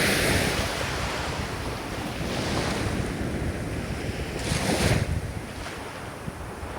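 Ocean waves washing in, with one wave surging about four and a half seconds in and then ebbing, and a low wind rumble on the microphone.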